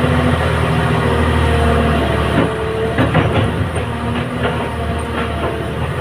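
Hyundai Robex 300LC excavator's diesel engine running steadily while its steel bucket digs into a gravel pile. About two seconds in, the stones start crunching and clattering against the bucket.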